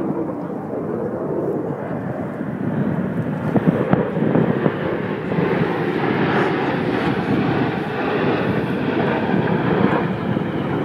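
Jet roar of USAF Thunderbirds F-16 Fighting Falcons flying past in formation: a steady rushing roar that grows a little brighter about six seconds in.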